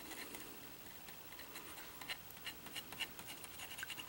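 Acid brush with short-cut bristles scrubbing a wet circuit board in sodium carbonate developer, washing the exposed solder mask off: faint scratchy strokes and small ticks, coming closer together after the first second or so.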